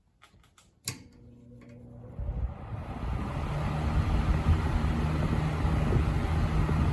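1970s Coast-Air box fan switched on with a click about a second in; its freshly serviced motor hums and the blades spin up, the rush of air building over a couple of seconds to a steady level.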